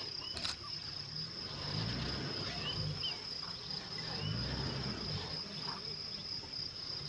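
Insects droning steadily on one unbroken high-pitched note, with a few short rising chirps over it.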